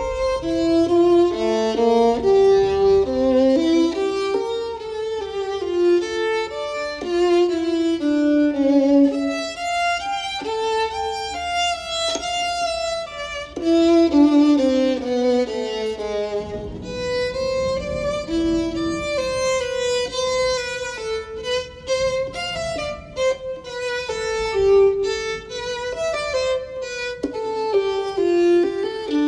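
Background music: a solo violin playing a slow, stepping melody.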